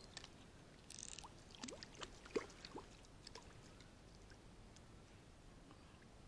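Near silence with faint, scattered splashes and small clicks from a hooked turtle stirring the water at the surface at the end of a fishing line, the sharpest about two and a half seconds in.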